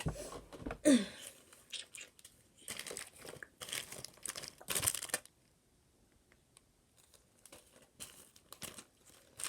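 Plastic packaging crinkling and tearing in irregular bursts as small bags of slime charms are handled and sorted, with a short falling sound about a second in. The rustling stops about halfway through, leaving only a few faint rustles near the end.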